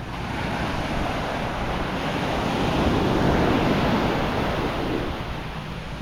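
Sea waves breaking and washing up a sandy beach, swelling to a peak about halfway through and then easing off, with wind buffeting the microphone.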